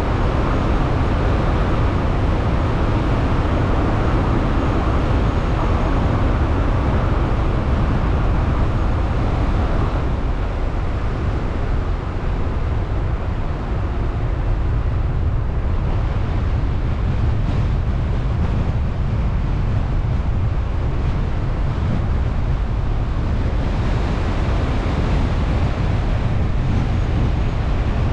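Car driving along, heard through a car-mounted GoPro: a steady low rumble of road and wind noise with a hiss above it, easing slightly about halfway through.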